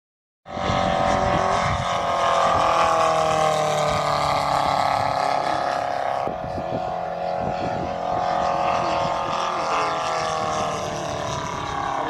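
Radio-controlled model airplane in flight, its motor and propeller making a steady high-pitched drone whose pitch slowly falls as it flies across and climbs away.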